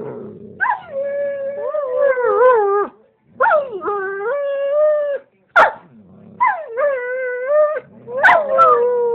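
German shepherd howling: four long, wavering howls in a row, each lasting a second or two, with short breaks between them.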